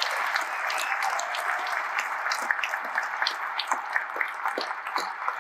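Audience applauding, a dense patter of many hands clapping that thins out and dies down near the end.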